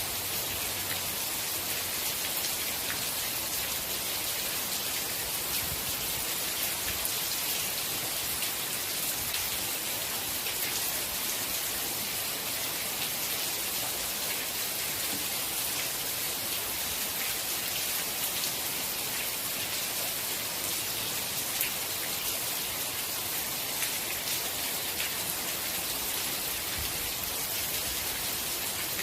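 Steady rain falling, a constant hiss with many faint drop ticks.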